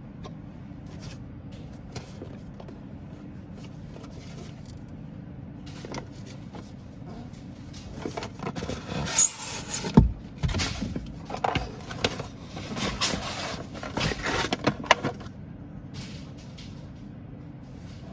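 Handling noises: scraping, clicking and rattling, loudest between about 8 and 15 seconds in, over a steady low hum.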